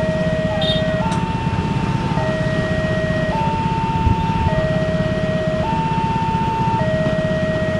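Railway level-crossing warning alarm sounding while the barriers are down, an electronic two-tone signal alternating between a lower and a higher tone about once a second. Underneath is the steady rumble of waiting motorcycles and cars idling, with a single knock about four seconds in.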